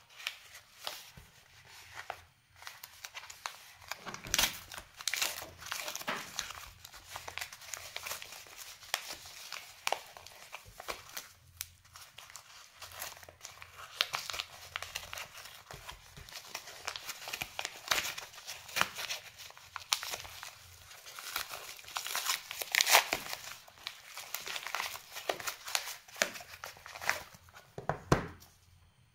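A yellow mailing envelope being crinkled and torn open by hand: an irregular run of crackling rustles and rips, loudest about two-thirds of the way through.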